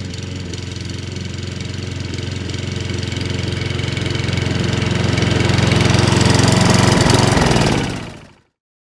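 Webb WER510SP petrol rotary mower's 173cc four-stroke OHV engine running steadily and growing louder, then cutting off sharply near the end.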